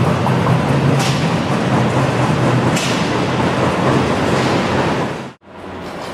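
Old-style intralogistics tugger train passing: a towing truck pulling a string of steel trolleys, giving a loud running noise with a steady low hum and a couple of clanks. This is the noisy system measured at about 78 to 79 decibels. About five seconds in it cuts off abruptly, and the much quieter running of an E-Liner logistic train follows.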